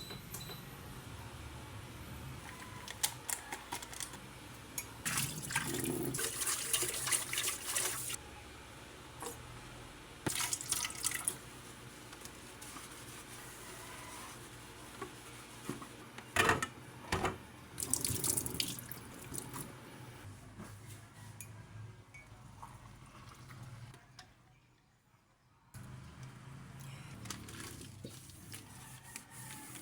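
Water from a tap running into a sink, coming and going in several louder gushes with splashing, and a few sharp knocks in between; it drops away briefly about three-quarters of the way through.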